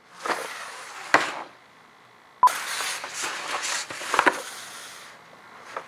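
A few sharp knocks, about one every second and a half, with rustling noise between them.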